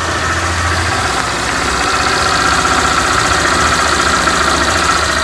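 Honda Titan 160's single-cylinder fuel-injected engine idling just after being started, with a faint steady high-pitched whistle over it from about two seconds in. The owner was told the whistle may be the fuel pump starting to fail.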